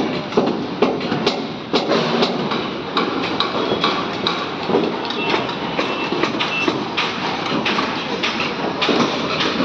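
Construction-site clatter: many irregular metal knocks and clanks, several a second, over a steady din.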